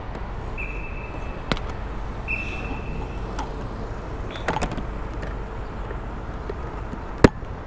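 Two short high electronic beeps about a second and a half apart, then scattered clicks and knocks with one sharp click near the end, over a steady low rumble of a motor scooter and street.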